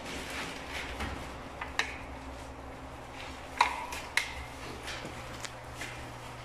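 Handling noise as the termination insulator is moved beside a chain hoist: a few short clinks and knocks of hard parts, the loudest about three and a half seconds in, over a steady low hum.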